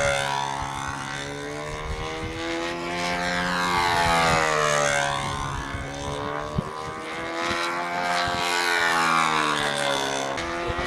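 Control-line stunt model airplane's small glow engine running steadily as the plane circles on its lines, the sound swelling and fading and the pitch bending about every five seconds as it comes round. One sharp click about two-thirds in.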